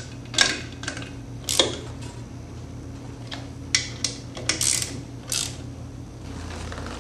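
Ratchet wrench clicking in a series of short bursts as the bolts fastening a new fan motor to its metal mounting plate are tightened, over a steady low hum.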